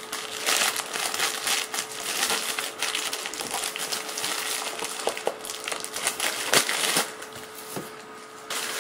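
A plastic courier mailer bag rustling and crinkling as hands work it open and pull out a small cardboard box, with scattered sharp crackles; the rustling dies down near the end.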